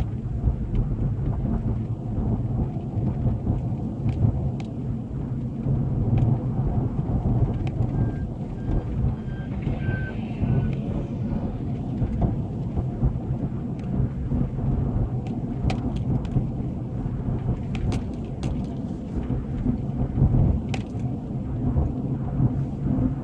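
Road noise inside a moving car: a steady low rumble of tyres and engine, with scattered light clicks. A few faint, evenly spaced beeps sound about eight to eleven seconds in.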